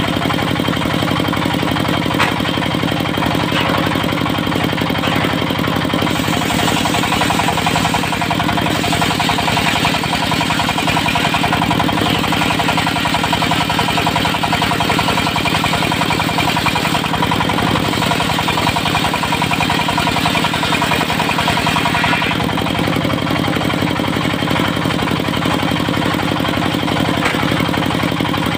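Dongfeng diesel engine of a portable circular-saw sawmill running steadily with a fast, even beat.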